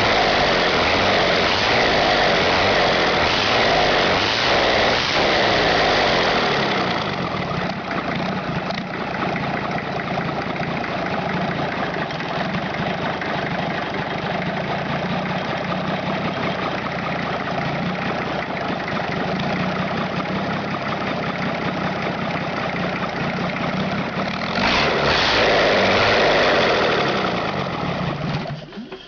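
Borgward six-cylinder truck engine running: faster and louder for the first several seconds, then settling to a steady idle. It picks up briefly again about three-quarters of the way through, and dies away at the very end.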